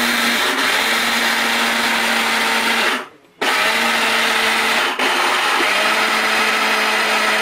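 Prestige mixer grinder motor running at speed with its small stainless steel jar, dry-grinding raw rice into rice flour. There is a brief gap about three seconds in, and the grinding then carries on.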